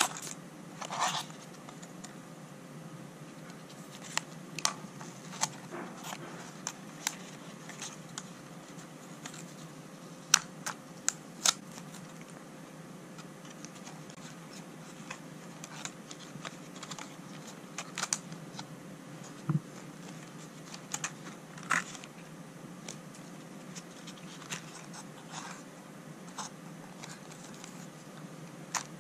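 Scattered small plastic clicks and taps from handling a DJI Mini 2 drone, its arms and propellers being moved by hand, over a faint steady hiss.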